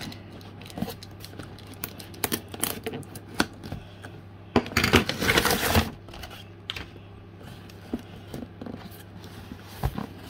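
Cardboard shipping box being opened: packing tape cut and pulled away from the cardboard, with scattered clicks and scrapes of scissors and flaps. About five seconds in, the tape tears loudly for about a second as a flap comes free.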